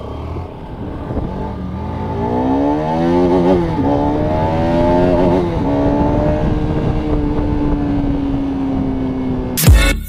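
Motorcycle engine accelerating through the gears: its pitch climbs, drops at an upshift, climbs again, drops at a second shift, then holds a steady cruise. Loud outro music with sharp beats cuts in just before the end.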